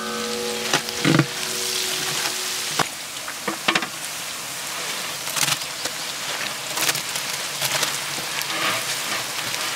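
Food frying in a large metal cooking pot, a steady sizzling hiss, with sharp knocks and scrapes of a long metal stirring paddle against the pot. A held musical note fades out in the first couple of seconds.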